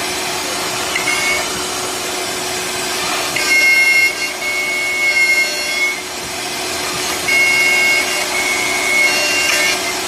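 CNC door lock-mortise and hinge machine running on wood: a steady machine hiss and hum, with a high whine coming in twice for about two seconds each, from about three and a half seconds and again from about seven seconds.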